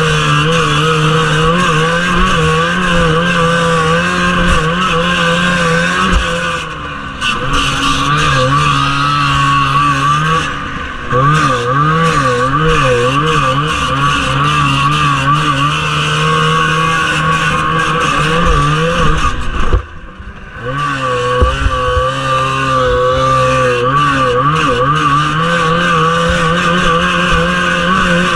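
1979 Arctic Cat Jag 3000 snowmobile's two-stroke engine running hard at high revs under race load, the pitch wavering as the track bounces it. The throttle is lifted briefly about seven and eleven seconds in, and the engine almost goes quiet for about a second near twenty seconds before coming back on.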